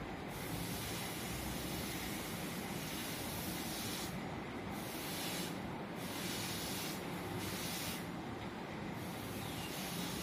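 Steady hiss from a hot clothes iron, heated to its maximum, as its soleplate is wiped clean of dissolved Panadol residue with a cloth. The higher part of the hiss drops away for moments a few times.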